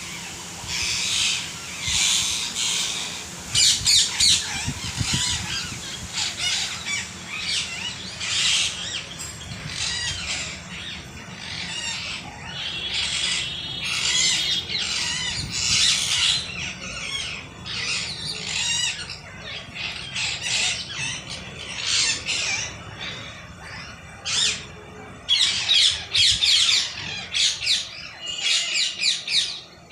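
A group of parrots squawking, with many harsh calls overlapping without a break and a few short held whistled notes among them.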